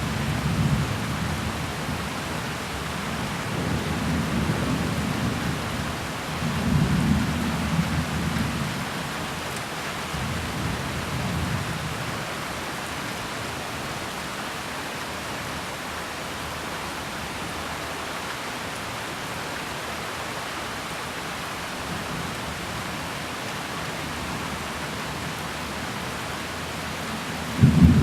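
Steady rain during a thunderstorm, with thunder rumbling several times over the first dozen seconds, then rain alone, and a louder peal of thunder breaking in just before the end.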